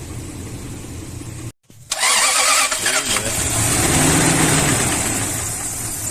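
Car engine idling steadily, then after a brief break it runs much louder with a hiss on top, its pitch rising and falling as it is revved and eased back.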